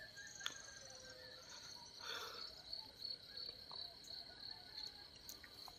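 Faint, steady high-pitched insect chirring, with a few fainter, higher chirps over it.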